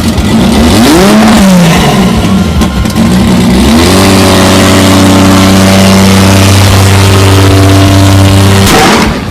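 Car engine revving: the pitch swings up and down several times, then the engine is held at a steady pitch for about five seconds before the sound cuts off abruptly near the end.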